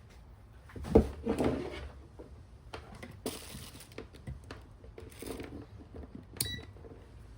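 Bench handling noise while wiring up a 12 V supply. About a second in there is a sharp knock and a short rattle, then several scattered rustles and clicks, and near the end a sharp metallic click that rings briefly.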